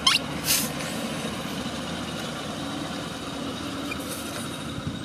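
Car tyre rolling onto a soft toy sandwich and squashing it flat: a quick falling squeak and a short hiss right at the start, then the car's engine running steadily as the tyre rests on it.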